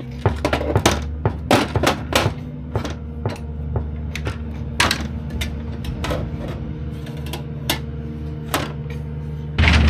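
Irregular sharp knocks, as of tools striking during door fitting, over background music with steady held low notes. Just before the end a much louder low sound comes in suddenly.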